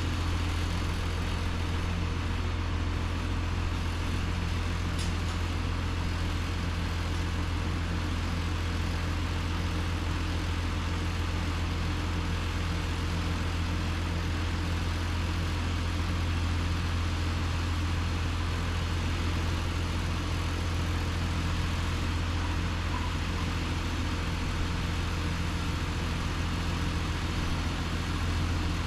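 An engine idling steadily, a constant low hum that holds unchanged throughout.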